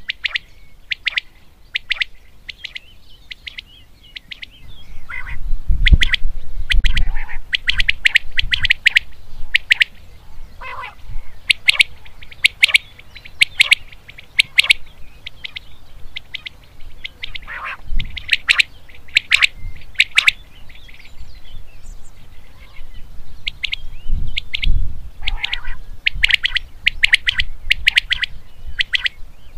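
Male common quail singing its repeated 'wet-my-lips' song: quick groups of short, sharp, high notes repeated again and again. A low rumble comes in twice, about a fifth of the way in and again near the end.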